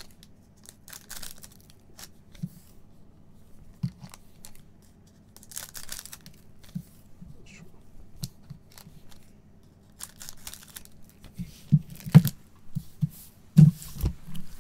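Foil wrappers of Panini Flux basketball card packs being cut open one after another: short crinkly rips, with a run of sharp knocks near the end as packs are handled on the table.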